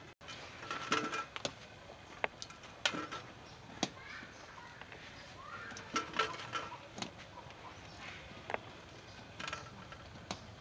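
Metal tongs clicking and knocking against an aluminium steamer pot as steamed corn cobs are turned and moved: a scatter of light, irregular taps, some with a short metallic ring. Faint bird chirps are heard between the taps.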